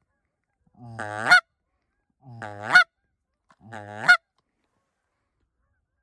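Goose call blown by hand: three separate honks, each starting as a low moan and breaking sharply up into a high note at its end, calling to Canada geese circling overhead.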